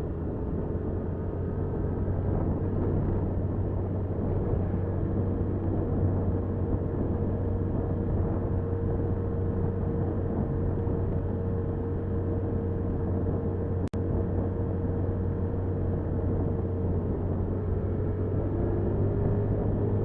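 Motorcycle engine running steadily under way, with road and wind noise, picked up by the bike's dashcam microphone. The sound breaks off for an instant about fourteen seconds in.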